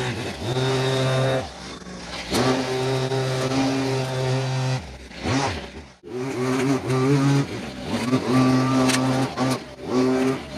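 Leaf blower running in repeated bursts of throttle, held high for a second or two and easing off between them, blowing cut daylily leaves off concrete and rock. The sound drops out briefly about six seconds in.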